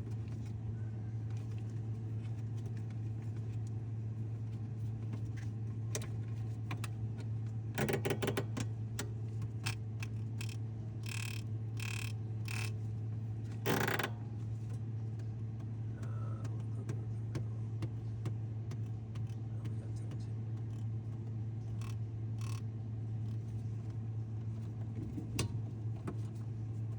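GE refrigerator running with a steady low hum, its fan no longer rubbing now that zip ties hold it off the contact surface. A few sharp clicks and knocks come about 8 seconds in and again between 11 and 14 seconds.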